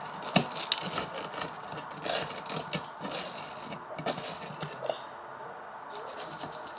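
Spoon scraping and tapping against a sieve, working lumps of sugar and flour through it, with scattered sharp clicks over a low rustle.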